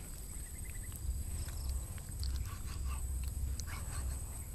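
Knife slicing cooked meat on a thick wooden chopping block, giving a few light scattered taps and knocks, over a low rumble of wind on the microphone.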